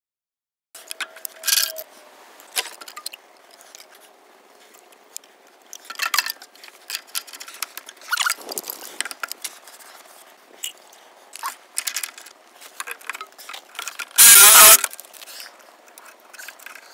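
Sharp plastic clicks, knocks and scrapes of PVC pipes and fittings being handled and pushed together, with a louder half-second rush of noise about fourteen seconds in.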